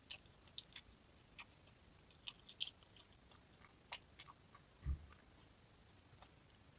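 Quiet close-up eating sounds: scattered small wet mouth clicks of chewing, with one soft low thump about five seconds in.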